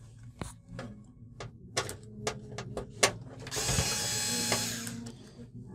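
A few sharp clicks, then a TOTAL cordless electric screwdriver runs for about a second and a half, turning a screw in the TV's backlight panel.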